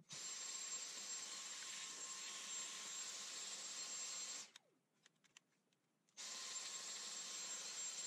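Dyson cordless stick vacuum running with a steady hiss and a thin high whine as it sucks up dust. It cuts out about four and a half seconds in, winding down briefly, and starts again a second and a half later.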